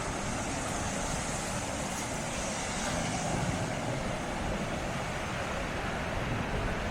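Steady rush of sea surf, with wind rumbling on the microphone.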